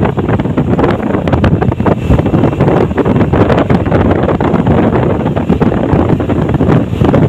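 Loud, gusting wind buffeting the microphone of a camera carried on a moving vehicle, with the vehicle's running noise underneath.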